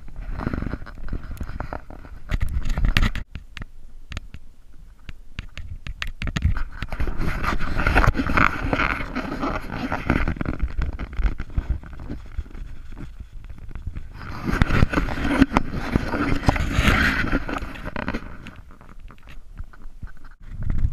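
Dog sled runners sliding over snow on a moving sled, with knocks of the sled frame and rustling of the sled bag close to the microphone. The sliding noise swells twice for a few seconds each.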